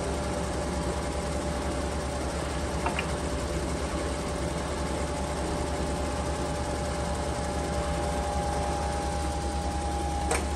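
Landis universal cylindrical grinder running under hydraulic power, a steady low hum with a steady whine from its wheel spindle and hydraulic drive. The whine grows a little stronger about halfway through. There is a short click about three seconds in and another near the end.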